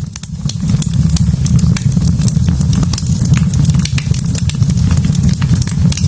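Wood fire in a fireplace crackling, with frequent sharp pops and snaps over a steady low rumble.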